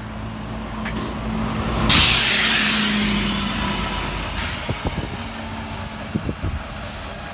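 Volvo B9TL double-decker bus engine running as the bus moves off past the stop, with a loud hiss of compressed air from its air system about two seconds in that lasts a couple of seconds. The engine sound then fades as the bus draws away, with a few short knocks near the end.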